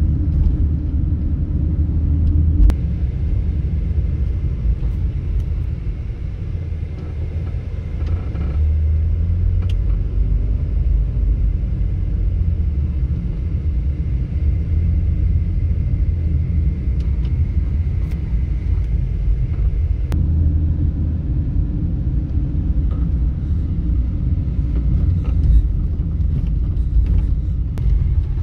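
Steady low rumble of a taxi driving through town, heard from inside the car: engine and road noise.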